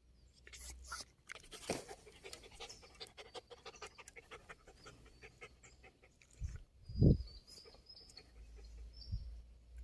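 Japanese spitz panting quickly and rhythmically, about four breaths a second. About seven seconds in there is a low thump.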